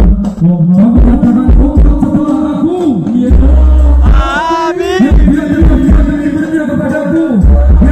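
Sholawat devotional music played loud through a large sound system: a singer's wavering melodic voice over heavy bass drum hits, with a high melodic run about four seconds in.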